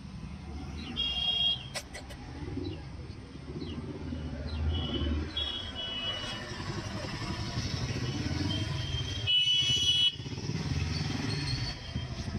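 Roadside motor traffic, motorcycles and other vehicles running past with a changing low rumble. Short high-pitched tones cut through about a second in, around five seconds, and loudest just before ten seconds.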